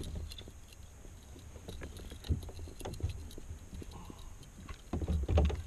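Scattered light clicks and knocks of a rod, reel and line being handled aboard a plastic kayak, over a low steady wind rumble on the microphone. There is a dull thump about two seconds in and a few heavier knocks near the end.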